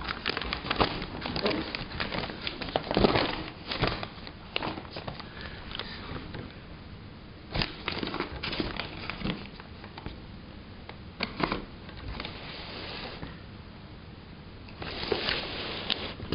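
Paper bag rustling and crinkling in irregular bursts as cats move about inside it, busiest in the first few seconds, with a lull before more rustling near the end.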